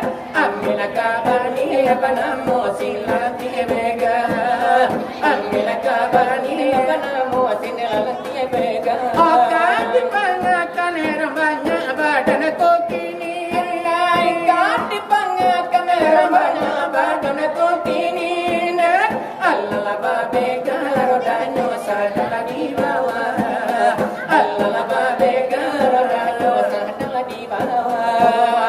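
Shalawat dulang, Minangkabau devotional singing: voices sing a winding, ornamented melody with sweeping pitch glides, accompanied by steady rhythmic finger-tapping on a brass tray (dulang).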